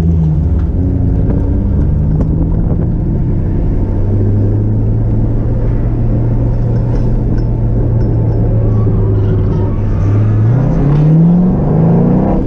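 Drift car's engine running hard, its pitch shifting at first, then held steady for several seconds before it revs up sharply about ten seconds in.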